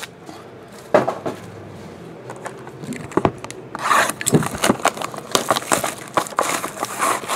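Plastic-wrapped trading card packs being handled and set down on stacks on a table, with a sharp tap about a second in. From about halfway on, a busy run of rustling, tapping and scraping as packs and a cardboard card box are shuffled about.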